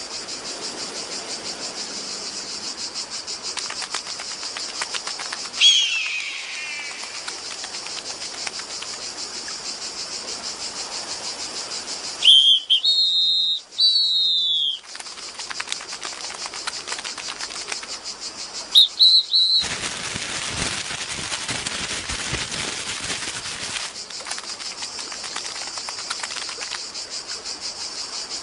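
Soundtrack of an animated short: a steady, fast insect-like chirring throughout. Short loud whistled chirps come about halfway and again about two-thirds through, and a brief falling whistle comes about a fifth of the way in.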